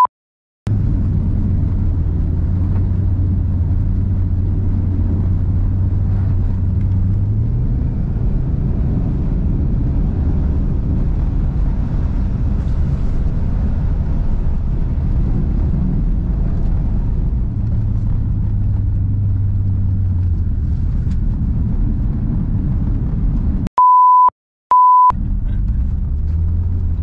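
Subaru Forester's engine running hard through a rally sprint run on ice, a steady low drone whose pitch shifts up and down several times. About 24 s in, the engine sound cuts out for two short, single-pitched beeps.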